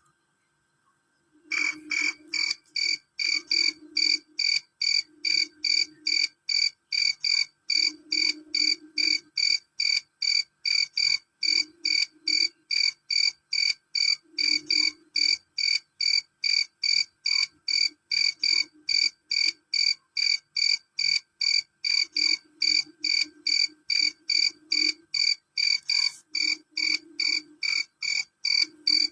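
Male cricket chirping loudly and shrilly in a steady, even train of about two chirps a second, starting about a second and a half in. A faint, intermittent lower sound comes and goes beneath the chirps.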